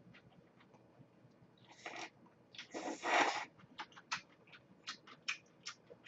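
A person slurping kongguksu noodles from the bowl in two hissing pulls, the second longer and louder, then chewing with a run of short wet mouth clicks and smacks.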